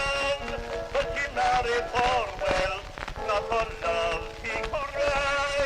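Early acoustic phonograph recording of a man singing a sentimental ballad with vibrato over a quiet accompaniment, with constant crackle and hiss of record surface noise.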